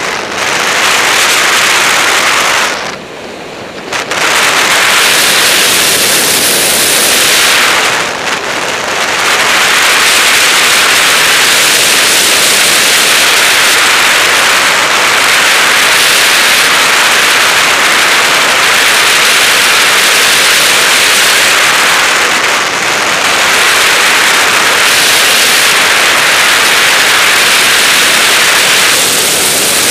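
Loud, steady rush of airflow buffeting the microphone of a camera mounted on a DG-100 sailplane in gliding flight, with no engine. It drops away briefly about three seconds in and dips again around eight seconds.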